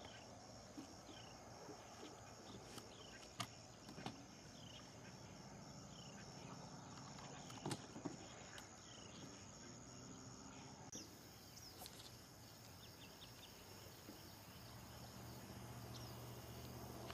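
Quiet outdoor ambience: a faint steady pulsing insect chirr with a short chirp repeated about every two-thirds of a second, and a few faint clicks. The chirping stops about eleven seconds in, and a low hum comes in near the end.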